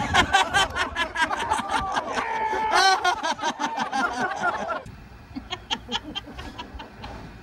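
People laughing loudly in quick, rapid bursts, which stop suddenly about five seconds in. Fainter, scattered background sounds follow.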